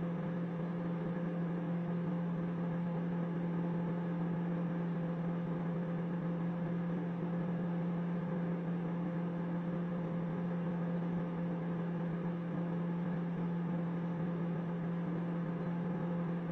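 Microwave oven running with a steady hum, no pops or crackles.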